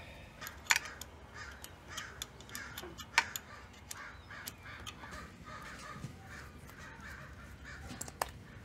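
Sharp metal clicks as the steel injector fuel lines and their fittings are handled on a diesel engine, three standing out, the loudest about three seconds in. Behind them a bird calls over and over.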